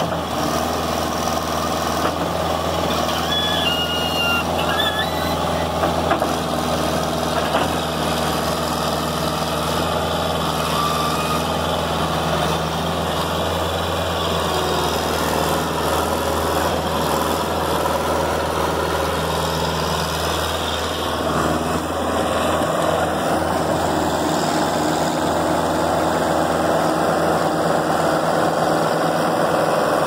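Thomas T-173S skid steer loader's engine running steadily while the loader bucket is worked and the machine drives and turns on grass. The engine note changes about two-thirds of the way through.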